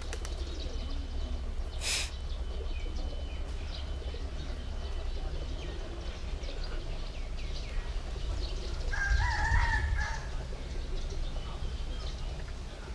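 A rooster crows once, about nine seconds in, over a steady low rumble, with faint chirps of small birds scattered throughout.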